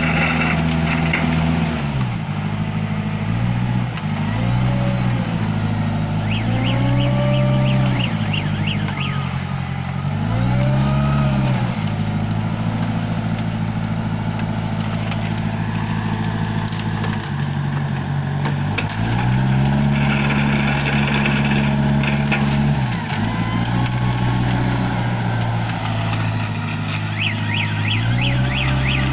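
Engine of a self-loading concrete mixer running under load, its revs rising and falling again and again. A fast, high ticking sounds briefly twice.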